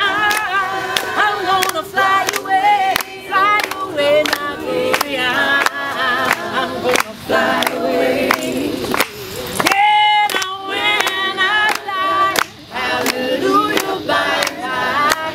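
A small group of men and women singing together unaccompanied, with hand claps keeping the beat.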